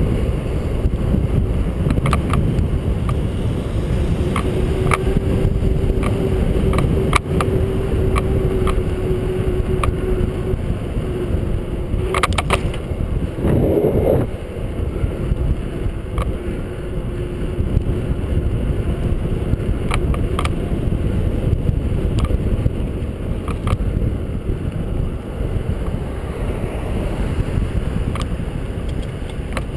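Bicycle riding over pavement, heard from a bike-mounted camera: steady wind buffeting on the microphone and tyre rumble, with scattered clicks and rattles from bumps and cracks. A louder burst of knocks comes about halfway through.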